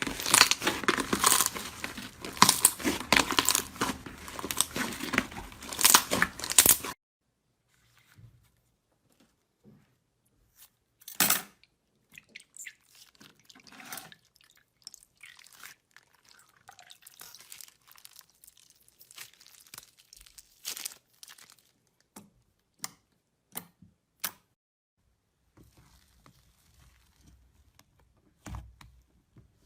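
Slime being squeezed and handled in ASMR fashion: a dense, loud crackling crunch for about seven seconds that stops abruptly, followed by sparse quieter clicks and pops with one sharp crackle about eleven seconds in.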